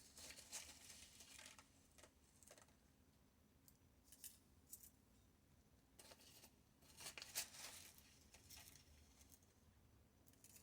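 Near silence, with faint, brief scratchy handling noises scattered through it as small craft materials are worked by hand.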